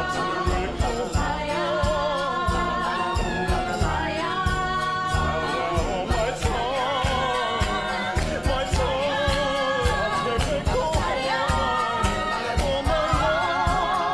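Music with singing: held, wavering vocal lines, with a choir, over a steady driving beat.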